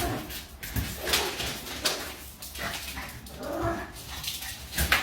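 A dog vocalizing in a string of short whines and barks.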